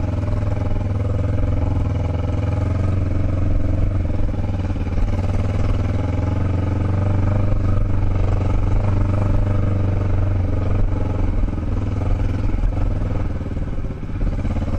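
Motorcycle engine running with a steady note as the bike is ridden along a dirt trail. The level dips briefly near the end.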